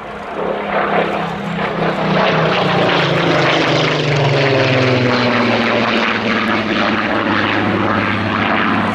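Rolls-Royce Griffon V12 engine of a Supermarine Spitfire PR XIX on a low flypast. It grows louder over the first couple of seconds as the aircraft approaches, and the engine note drops in pitch as it passes and heads away.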